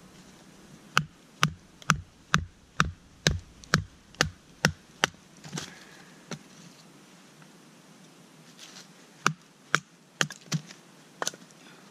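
Sharp wooden knocks from sticks of firewood being struck: about nine evenly spaced strikes, roughly two a second, then a pause and a few scattered knocks near the end.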